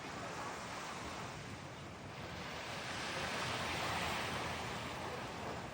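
Ocean surf breaking and washing ashore, a rushing swell that builds about two seconds in, is loudest past the middle, and eases off near the end.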